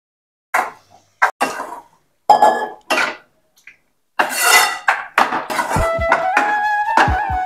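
A steel ladle clatters and scrapes against a steel vessel, a mesh strainer and a frying pan as cooked tomato and onion is tipped and stirred into the pan: several short metallic clinks. From about four seconds in, background music begins under continued stirring clatter.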